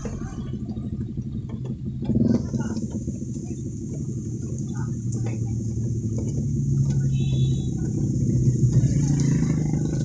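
Vehicle engine running steadily in slow uphill traffic, heard from inside the cab, growing a little louder past the middle. A short high beep comes about seven seconds in.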